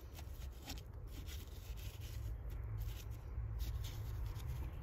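Soft, scratchy rubbing and rustling of hands handling perilla seeds and garden soil during sowing, over a low steady rumble.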